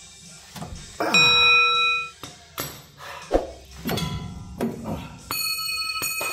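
Steel hand tools clanking against the rusted rear leaf-spring shackle and bolts under a Chevrolet Silverado. There are two ringing metallic clangs, one about a second in and one near the end, with a few duller knocks between.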